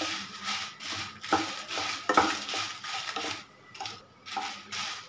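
Dried red chillies, coriander seeds and cumin being stirred and tossed while frying in a shallow nonstick pan, an irregular scraping rustle with a couple of sharp knocks against the pan.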